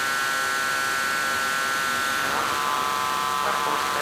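Live electronic sound: a steady buzzing drone of many close, level tones over a hiss, shifting slightly about two seconds in.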